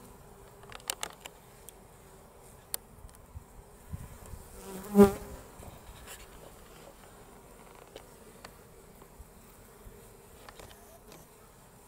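Honeybees buzzing at a hive entrance. About five seconds in, a single bee buzzes very close to the microphone in a loud, brief buzz that swells and fades. A few faint light clicks come earlier.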